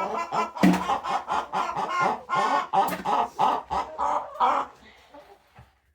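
Domestic hens clucking and cackling, several at once in a quick run of repeated calls, dying away about four and a half seconds in.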